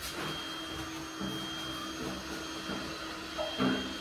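Steady whir of an electric motor, with a constant hum, like a vacuum cleaner or fan running. A short, louder rub or squeak comes near the end as a cloth wipes the mirror glass.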